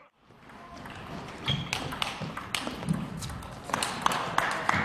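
Table tennis ball clicking off the bats and the table in a rally. A few separate hits come first, then quick clicks a few times a second near the end.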